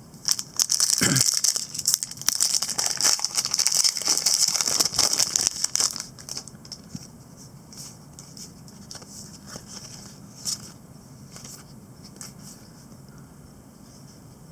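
Crinkling and rustling of plastic or foil card-pack wrapping while trading cards are handled, for about five seconds, then only faint handling clicks.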